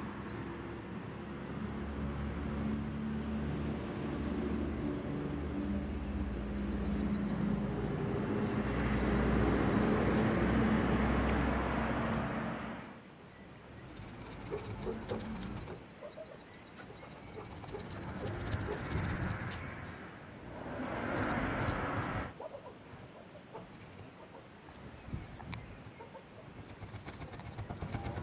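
Crickets chirp steadily in a high, evenly pulsing tone. A low droning rumble, loudest about ten seconds in, cuts off at about thirteen seconds. After it, a metal scraper grates in short strokes over the carbon-fouled combustion chambers of a cast cylinder head.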